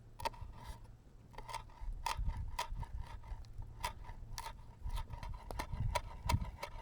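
A camping knife slicing a chili on a cutting board: a string of short, irregular taps, about two a second, as the blade comes down through the pepper onto the board.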